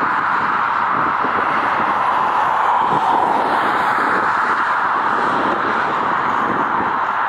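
Boeing 777's twin jet engines running at taxi power, a loud, steady rushing roar.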